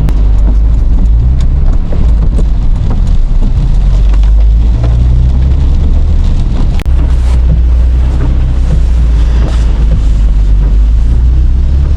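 Steady low rumble of a car on the move, heard from inside: engine and road noise, with some wind on the microphone.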